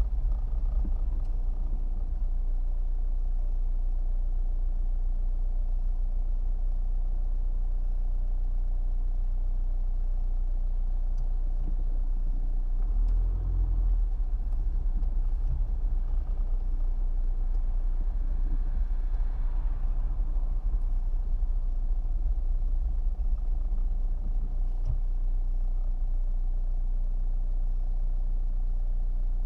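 Car engine and tyre rumble heard from inside the cabin while driving slowly in traffic, a steady low hum with a brief louder rumble a little before halfway.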